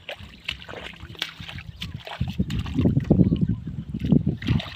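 Splashing and sloshing in shallow, muddy field water, with sharp splashes throughout and a heavy low rumble from about two seconds in.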